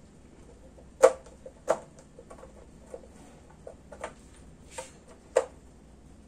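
Sharp knocks and taps of a steel ruler and marker against a whiteboard as the ruler is lifted and set down again, about five louder knocks with smaller ticks between, the loudest about a second in.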